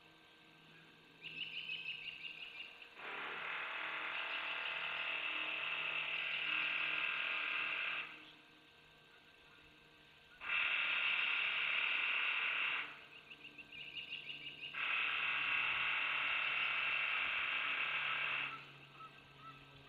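A harsh, rasping buzz repeating in bouts a few seconds long, with short pauses between them. Some bouts start with a rapid stutter before settling into a steady buzz.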